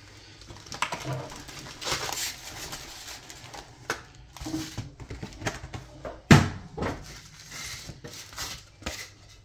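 Foil trading-card packs rustling and crinkling as they are pulled from a cardboard box and handled, with a sharp tap about six seconds in.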